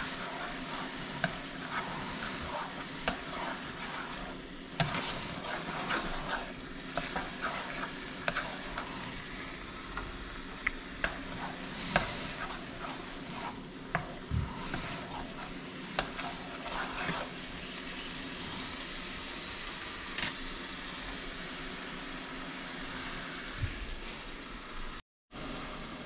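Food frying in hot oil in a pan, sizzling steadily, while a utensil stirs it and clicks and knocks against the pan, most busily in the first two-thirds. The sound cuts out briefly near the end.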